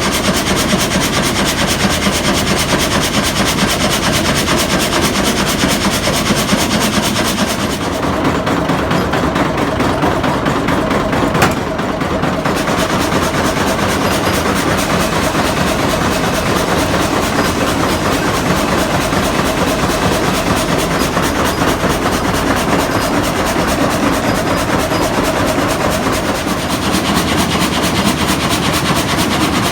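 Old Bolinder sawmill running: the reciprocating frame saw and its drive make a loud, fast, even clatter. The highs thin out for a few seconds near the middle, with one sharp knock.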